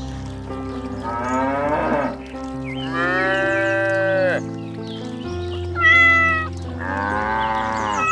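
Cattle mooing four times, one call higher and shorter than the others, over steady background music.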